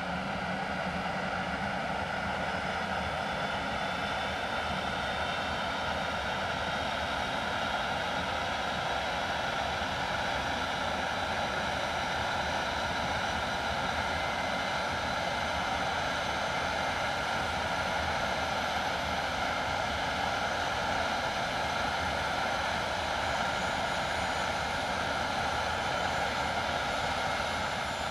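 The two Rolls-Royce Avon turbojets of an English Electric Lightning running steadily on the ground: a constant rushing jet noise with several steady high whining tones above it.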